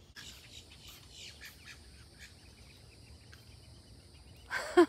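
Faint, quick chirps of a small songbird, several in the first two seconds, over a steady high-pitched background drone; a loud voice breaks in near the end.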